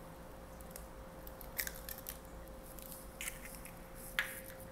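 A raw egg being cracked on a bowl and its shell pulled apart: a few short, faint cracks and clicks.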